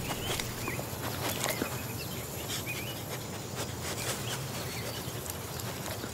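Outdoor nature ambience with no music: a steady high insect drone, short chirps from birds recurring about once a second, and scattered sharp clicks.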